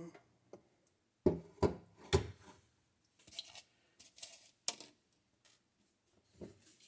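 Handling noises from the espresso machine's casing being worked on: three sharp knocks in quick succession about a second in, then light scraping and a couple of clicks.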